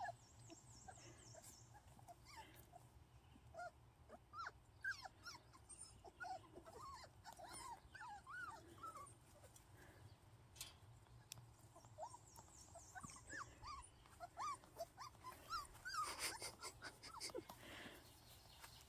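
Young Miniature American Shepherd puppies, about five weeks old, making faint, scattered short squeaks and whimpers as they play.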